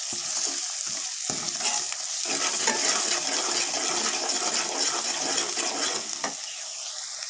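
Onion-and-spice masala sizzling in hot oil in a metal kadai while a metal ladle stirs and scrapes through it, the bhuna stage of frying the masala. The stirring stops about six seconds in, leaving just the steady sizzle.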